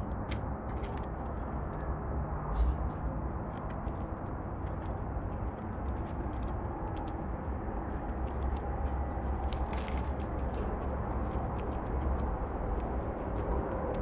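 Blue jay pecking at and picking up peanuts in a feeder bowl: irregular sharp clicks and taps, several a second, with a denser flurry about two-thirds of the way in, over a steady low rumble on the microphone.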